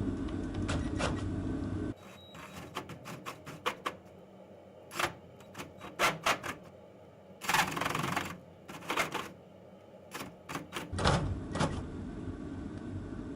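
Irregular sharp clicks and knocks of tools and parts being handled, with a short rasping burst near the middle; no steady drilling is heard.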